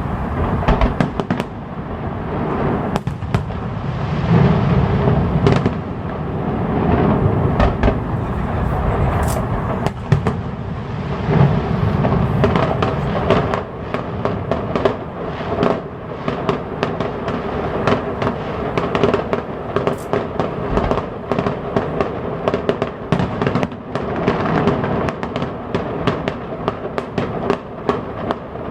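Fireworks display: a rapid, unbroken barrage of bangs and crackles, with heavier low booms now and then.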